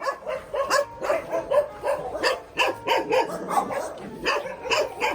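Large dogs in a kennel barking hard and without pause, several sharp barks a second overlapping one another. It is warning barking: the dogs bark at people but do not bite.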